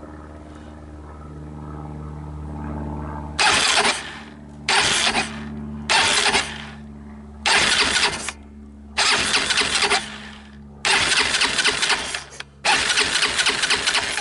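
Electric starter of a 2008 Wildfire 300 ATV's engine cranking it over in seven short bursts, powered straight from a jump pack. The bursts get longer towards the end. The engine turns over without firing, showing it is not seized.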